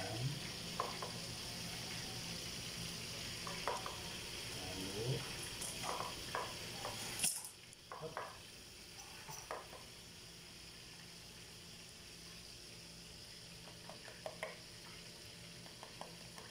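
Tomato sauce sizzling in a nonstick pan on the stove while a spatula stirs it, with light scrapes and taps of the utensil against the pan. The hiss drops sharply about seven seconds in, and quieter sizzling and a few taps go on.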